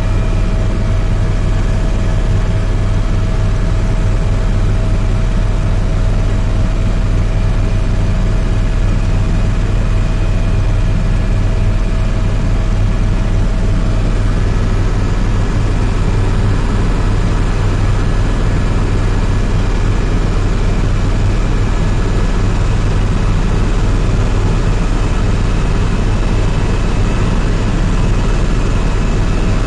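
Helicopter engine and rotors heard from inside the cabin in flight: a loud, steady drone with a deep hum and several high whining tones, one of which stops about halfway through.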